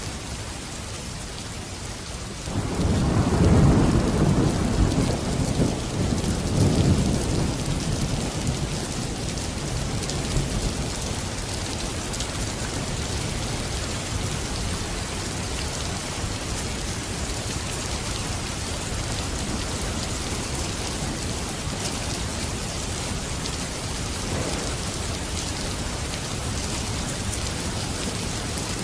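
Steady rain falling, with a roll of thunder breaking in about two and a half seconds in and rumbling away over the next several seconds.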